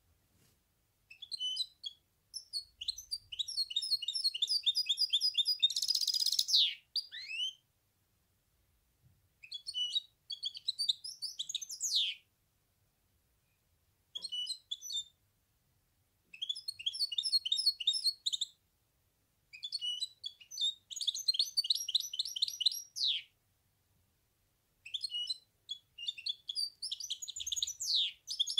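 Goldfinch hybrid (mule) singing: phrases of fast, high twittering trills a few seconds long, separated by pauses of a second or two, several of them ending in a quick falling slur.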